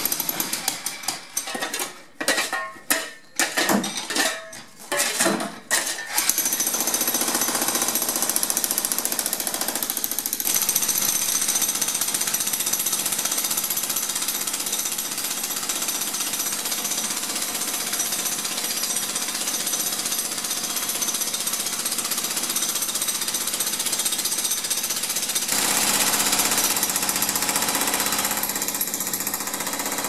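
Jackhammer breaking up concrete. For the first six seconds it runs in short stop-start bursts, then it hammers continuously.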